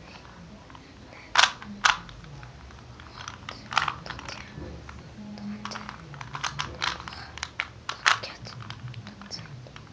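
Plastic Rubik's cube being twisted by hand: irregular clicks and clacks of its layers turning, with a few sharper snaps, the loudest two close together about a second and a half in.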